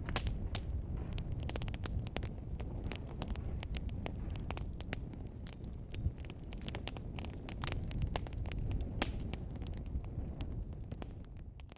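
Fireplace fire crackling, with frequent sharp pops and snaps over a steady low rumble of flames. The sound dips away right at the end.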